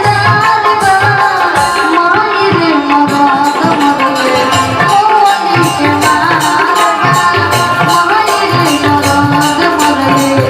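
Live stage band music: a wavering melody line over a steady beat of hand drums and rattling percussion.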